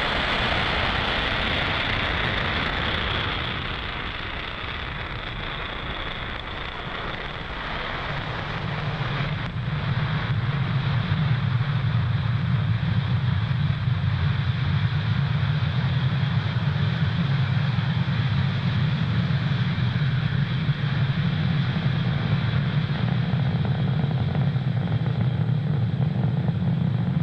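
Falcon 9 first stage's nine Merlin 1D engines during ascent, heard from the ground as a continuous rocket rumble. It is broad and hissy at first, eases a few seconds in, then settles into a steady deep rumble.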